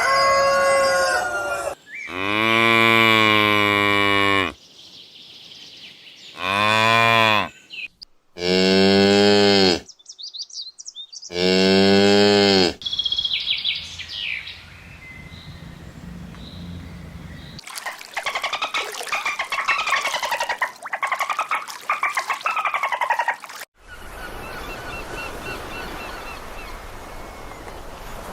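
Cows mooing four times in long, low calls over the first half. Shorter high calls from other animals follow in the second half.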